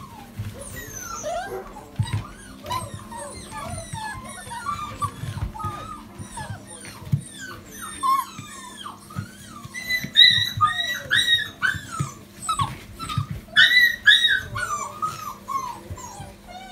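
A litter of golden retriever puppies whining and yelping, many short high-pitched calls overlapping, loudest about ten and again about fourteen seconds in, with scattered low thumps among them.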